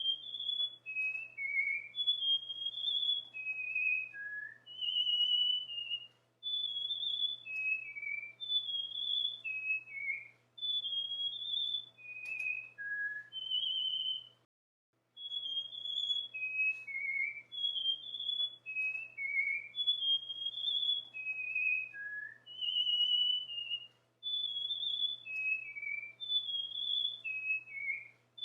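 Cockatiel whistling its song: short, clear whistled notes in quick runs that step down in pitch, the same phrase repeating over and over, with a brief break about halfway.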